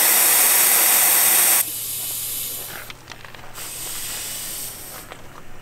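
Air hissing out of a Jeep tyre through a tyre deflator with a gauge on the valve stem, as the tyre is let down. The hiss comes in spells: loud for the first second and a half, then quieter until about three seconds in, then again for about a second.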